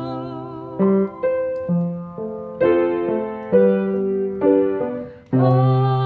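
Piano played alone between sung lines: a slow run of chords struck roughly every half second, each ringing and fading, then a fuller chord struck and held near the end.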